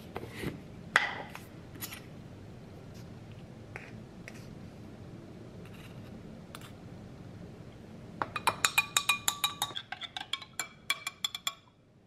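Metal spoon stirring a powdered drink mix into water in a tall drinking glass, clinking rapidly and repeatedly against the glass with a ringing tone for about three seconds near the end. Earlier, a few scattered clicks and one sharp clink of glass about a second in.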